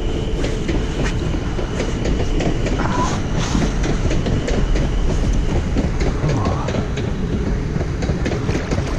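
A train passing on the railway line: a steady low rumble with scattered sharp clacks of wheels on the rails.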